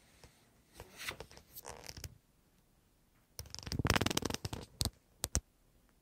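Handling noise on a phone's microphone: two scratchy, rustling bursts each about a second long, then two quick clicks near the end.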